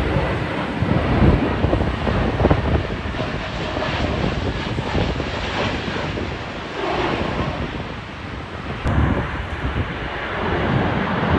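Jet airliner engines on final approach, a continuous rushing noise, with wind gusting over the microphone.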